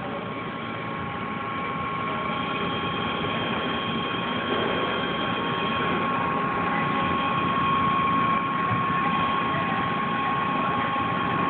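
Steady machine hum with a constant high whine, growing gradually louder over the first several seconds, from the Coca-Cola Freestyle soda fountain.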